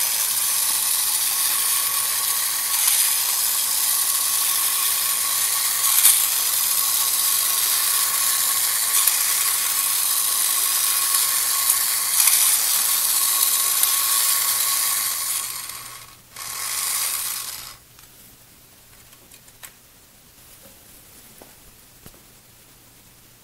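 Electric motor and gear train of a 1950s Masudaya Space Commando battery-operated tin robot, whirring and clattering steadily as it walks. It stops about fifteen seconds in, runs once more for about a second and a half, then stops.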